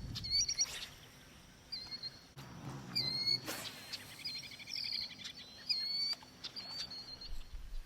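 A songbird calling over and over in short, high slurred notes, with a quick trill about halfway through.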